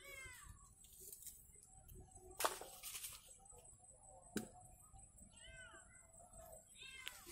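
A cat meowing three times, each a short call falling in pitch. A sharp knock sounds about midway.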